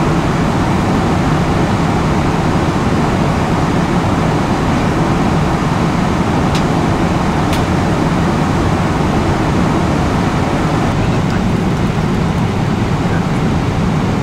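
Steady cabin noise of a Boeing 777-300ER in cruise flight, a low rushing hum of engines and airflow heard from inside the cabin. Two faint clicks come about halfway through.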